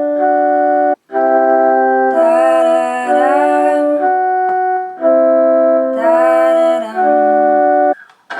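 Eytse EY200 61-key beginner keyboard playing sustained block chords in an organ-like tone, changing about once a second, with a brief break about a second in. Twice, around two and six seconds in, a voice through the keyboard's plug-in microphone slides in pitch over the chords from its speakers.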